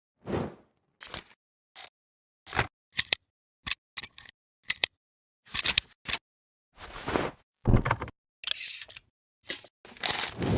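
A run of short transition sound effects, one after another with silent gaps between: camera-shutter-like clicks and brief swishes, about a dozen in ten seconds, the longest and loudest near the end.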